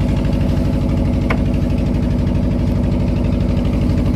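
Fishing boat's diesel engine running steadily with a fast, even pulse. A short click sounds about a second in.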